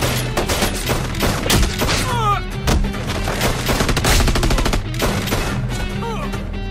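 Movie gunfight: many handgun shots in rapid, irregular succession, with bullet impacts, over a music score with steady low bass notes.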